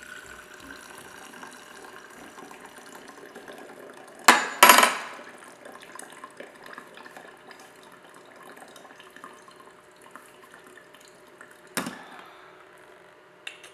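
Brewed coffee pouring in a thin steady stream from a French press into a glass mason jar, a soft, even trickle. About four seconds in comes a loud, sharp clatter, a metal spoon set down on the tray, and a single click near the end.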